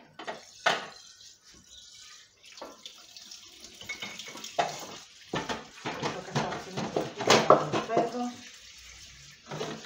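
Tap water running into a kitchen sink while a frying pan is rinsed and scrubbed, with knocks and clatter of cookware against the sink and pots, busiest in the second half.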